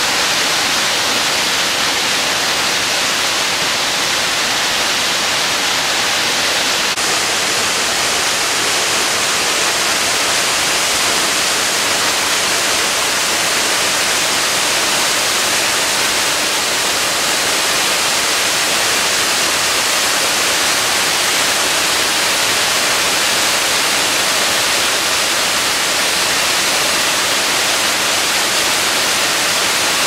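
Waterfall cascades pouring down a rocky ravine, a steady, unbroken rush of white water from a stream swollen by heavy rain.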